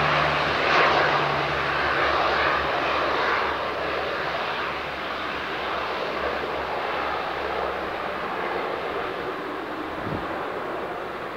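Canadair CL-415 water bomber's twin turboprop engines running at power as the aircraft skims the sea scooping water. The steady propeller drone fades as it pulls away, and its low propeller hum dies out after the first couple of seconds.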